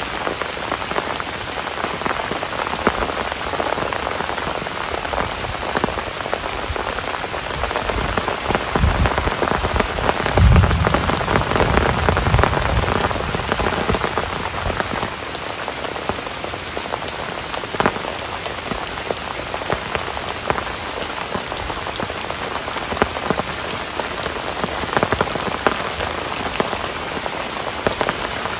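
Heavy rain falling steadily on forest ground and foliage, a dense patter of drops. A low rumble swells through the middle, about eight to thirteen seconds in.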